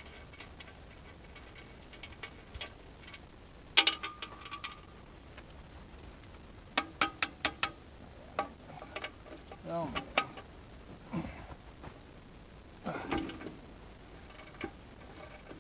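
Metal-on-metal clinks and taps of hand tools against the steel bucket pins and fittings of a mini excavator's bucket linkage: a couple of sharp ringing strikes about four seconds in, then a quick run of five or so about seven seconds in, with a few softer knocks after.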